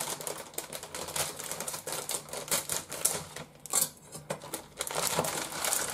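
Scissors snipping through a plastic food packet, then the plastic wrapper crinkling and crackling as it is handled, in a dense run of small irregular clicks.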